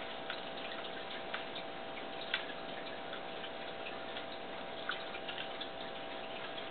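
Room tone: a steady hiss and low hum with faint, irregular ticks scattered through it, a sharper tick about two seconds in.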